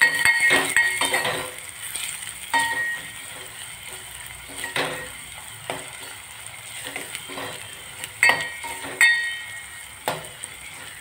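Chopped onion and green chillies sizzling in hot oil in a steel pot, stirred with a steel ladle that scrapes and clinks against the pot. The clinks ring sharply, loudest at the start and twice around eight to nine seconds in.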